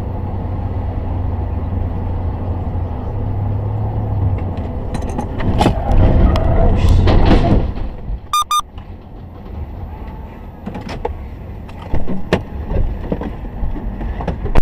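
Dashcam sound of a car on the highway: steady road and engine noise, then about five seconds in a loud rush of braking and crash noise with sharp knocks as the vehicles ahead collide. This is followed by two short electronic beeps and scattered knocks.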